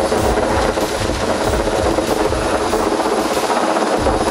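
Helicopter hovering overhead while it holds a tower section steady on its line, a loud, steady rotor and engine noise with a repeating low pulse from the blades.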